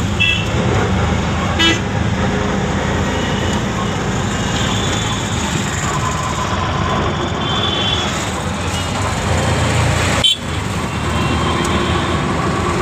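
Auto-rickshaw's small engine running steadily under way in traffic, heard from inside the open cab, with short vehicle horn toots near the start and a few more further on.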